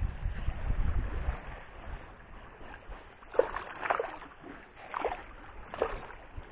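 A few short splashes in shallow sea water, four over about two and a half seconds, as a hooked emperor fish is played in close on an ultralight spinning rod; wind rumbles on the microphone at first.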